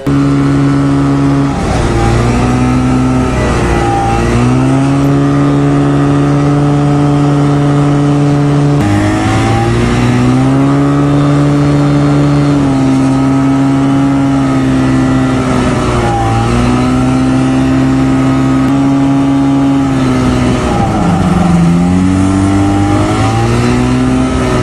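Engine of a small plane, a snowmobile-type engine, running hard while it moves across snow. Its pitch dips and climbs again several times as the throttle is eased and opened.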